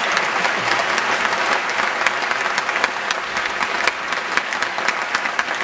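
Audience applauding: dense clapping that eases off a little near the end.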